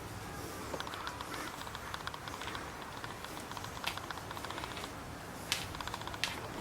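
Light clicking and tapping of small hard objects being handled, with a few sharper single clicks about four seconds in and near the end.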